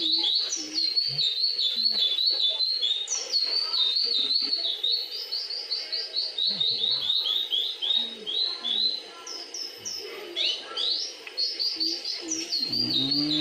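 A songbird singing a long, unbroken series of quick repeated chirps, several notes a second, with a short pause and a change of phrase about ten seconds in.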